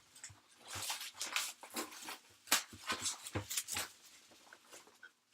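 Plastic and foil wrapping of a box of Panini NBA Hoops trading card packs being torn open and handled: a run of irregular crinkles and rips, quieter near the end.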